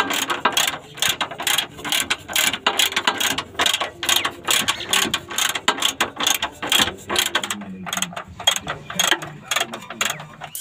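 Hand ratchet wrench clicking in quick, uneven runs of strokes as the lower control arm bolts are tightened.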